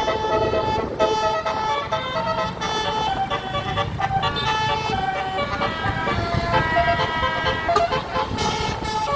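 A QQTrans Andara bus's telolet musical air horn playing a quick tune of changing notes, several tones sounding together, over the low rumble of the bus.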